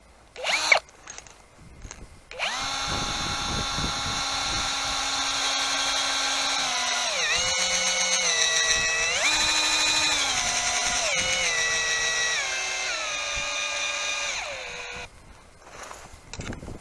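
Cordless 18 V drill-driver driving a tent's anchor screw into lake ice: a short whir, then a long steady motor whine that drops in pitch, rises again and steps down before it stops near the end.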